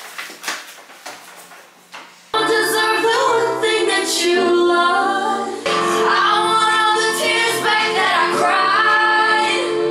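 Soft rustling and clicks, then about two seconds in a song with a female singing voice starts abruptly and runs on loud and full.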